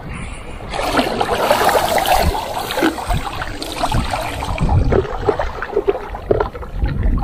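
Sea water splashing and sloshing close to the microphone as a wading person handles a floating tub in the water. It grows louder about a second in, with many small irregular splashes.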